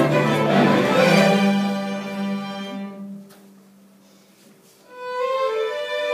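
String orchestra of violins, cellos and basses playing a gato, an Argentine folk dance. A sustained chord with a low held note fades away about three seconds in. After a short pause the strings come back in with a higher melody about five seconds in.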